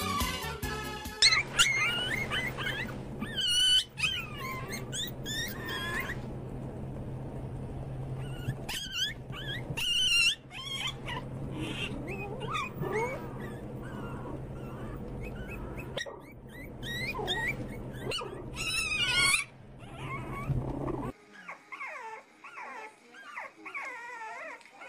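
Dogs whining in clusters of short, high-pitched cries over a steady low hum, with a second of music at the very start. The hum cuts off about 21 seconds in, and lower, wavering whines follow.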